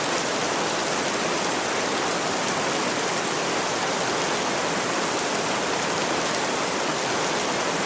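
Steady rain falling on a roof, an even, dense patter with no breaks.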